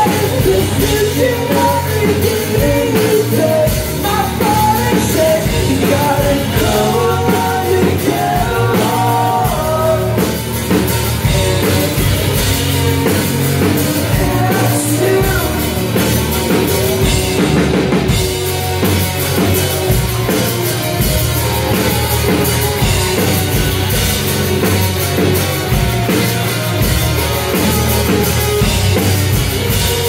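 Live rock band playing loud and dense: distorted electric guitars, bass and a drum kit, with singing over it.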